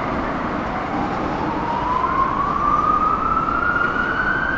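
Electric double-deck train's traction motors whining, the pitch rising steadily as the train picks up speed.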